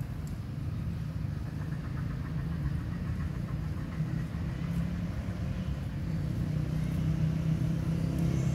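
Steady low engine hum, like a motor idling, a little louder near the end.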